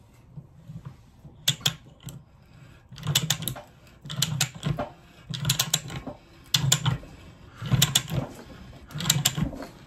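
Ratcheting pipe threader with a 1-inch die head worked on a galvanized steel pipe: a burst of ratchet clicks with each stroke of the handle, about once a second, seven strokes in all, as the die's teeth start to bite into the pipe.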